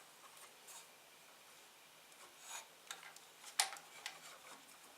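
Faint scattered small clicks and light scrapes of a hex key working tiny M2 grub screws loose from a 3D printer's Z-axis stepper shaft part, with one sharper click about three and a half seconds in.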